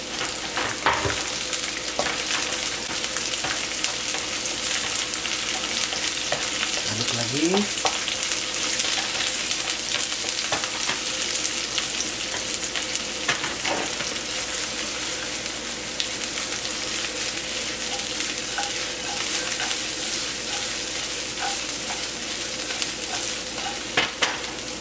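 Sliced onion sizzling in hot oil with garlic and shallots in a nonstick frying pan: a steady frying hiss, with scattered scrapes and taps of a wooden spatula stirring it.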